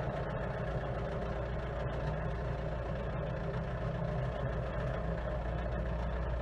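A vehicle engine running steadily with an even low hum.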